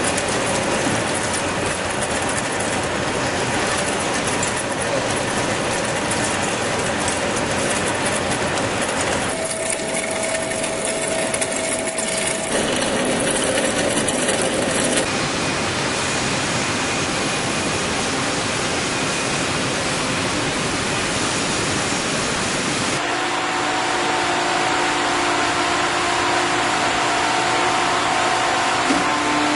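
Heavy metal-turning lathe running and cutting, a loud steady noise that changes abruptly several times, with steady ringing tones from the work in the last few seconds.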